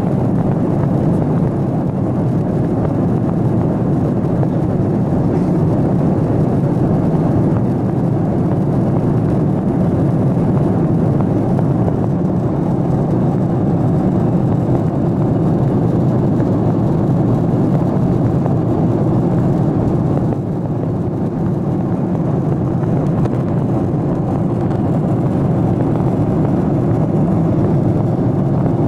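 Airliner cabin noise in flight: the steady low rush of the engines and airflow heard from inside the cabin, dipping slightly about two-thirds of the way through.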